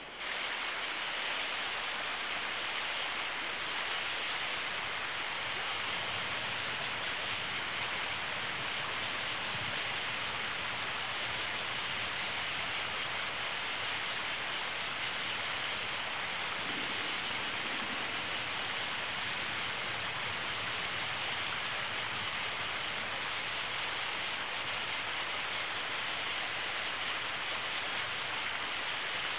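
Steady water ambience: an even rushing hiss of running water with no separate splashes or drops, unchanging throughout.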